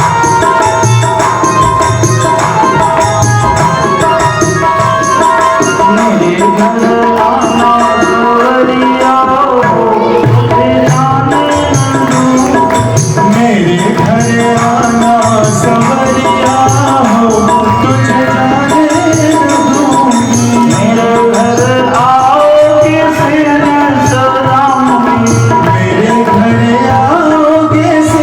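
Devotional kirtan music: a voice sings a gliding melody over a steady hand-drum rhythm and a held instrumental tone, the singing coming in about six seconds in.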